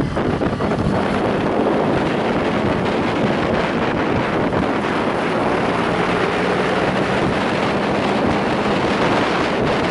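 Motorcycle engine running at a steady cruising speed, with heavy wind rush over the microphone.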